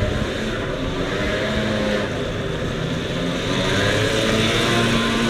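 A motor vehicle's engine running steadily, a droning hum over a constant rushing noise, growing slightly louder about halfway through.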